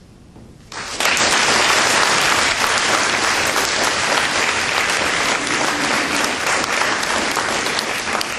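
Audience applauding, breaking out suddenly about a second in and tapering off near the end.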